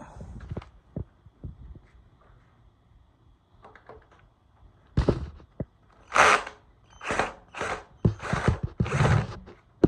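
Workshop hand-tool work on motorcycle parts. A few light knocks and clatter come first. Then, about halfway, a run of six short, loud, rasping strokes, each under a second apart.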